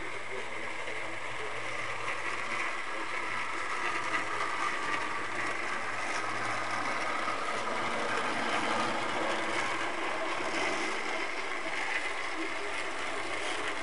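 Model trains running on the layout: a steady whirring of the locomotive motors and wheels on the track, with a low hum underneath.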